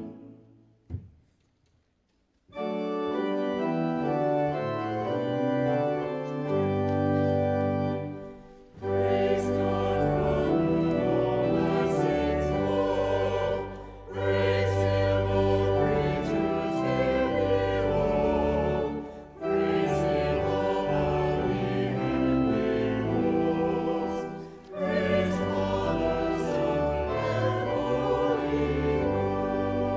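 Choir singing a slow hymn with pipe organ accompaniment, in phrases of about five seconds with short breaks between. It begins after a brief near-silent pause broken by a single click about a second in.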